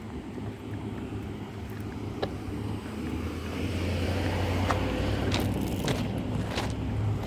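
A road vehicle driving past, its sound swelling to a peak about five seconds in and easing off a little, with a few light clicks.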